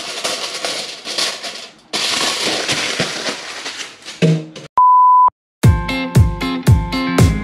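Aluminium foil crinkling as it is pulled off a baking tray and crumpled, with a short break about two seconds in. A steady high beep lasts about half a second, then guitar music with a steady drum beat starts.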